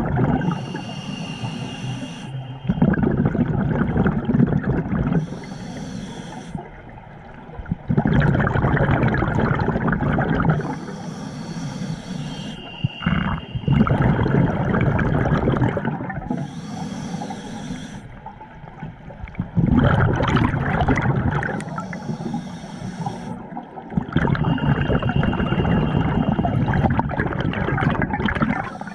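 Scuba diver breathing through a regulator underwater: a hissing inhale through the demand valve alternating with a louder rush of exhaled bubbles, about six breaths at a steady pace of roughly one every five seconds.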